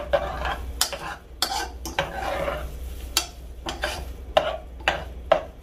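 A spoon stirring moist couscous in a saucepan, scraping against the pan in quick, irregular strokes as the grains and water are mixed on the lit burner.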